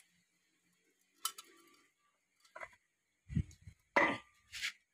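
Metal clinks and dull knocks from a planetary gear carrier with three planet gears being worked down by hand into a Mahindra Yuvo 575 tractor's rear-axle final-drive housing, its gears knocking into mesh. The clinks come one at a time, the loudest about four seconds in.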